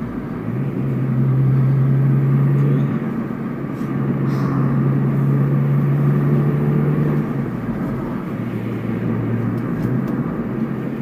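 Acura CSX's four-cylinder engine and road noise heard from inside the moving car: a steady engine hum that dips briefly about three seconds in and settles to a lower note about seven seconds in, as with a gear change or easing off.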